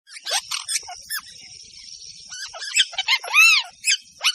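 Parrots calling: a string of short chirps and arched squawks that rise and fall in pitch, the loudest about three and a half seconds in, over continuous high-pitched chatter.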